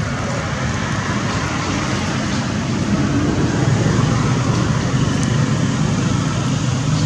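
Steady background noise with a low hum, growing a little louder about three seconds in.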